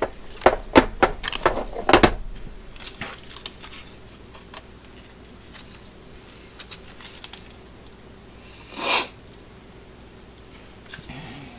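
Husky ratchet tie-down straps being handled and stuffed into their fabric bags: the metal ratchets and hooks clatter with a quick run of clicks and knocks, then the webbing and bags rustle quietly. A short rasp of fabric comes about three-quarters of the way through.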